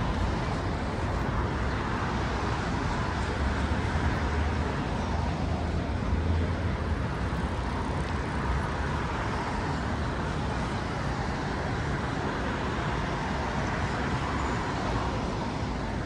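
Steady city street traffic noise: a low rumble of passing cars and other vehicles, swelling a little a few seconds in.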